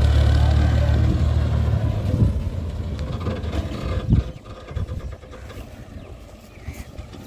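Tractor diesel engine running hard under load, then dropping off sharply about four seconds in, with a brief knock as it does, leaving a quieter low rumble.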